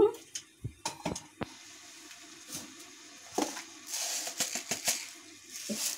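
A few light clicks and taps of a spoon and small kitchen bowls being handled, with a short faint hiss about four seconds in.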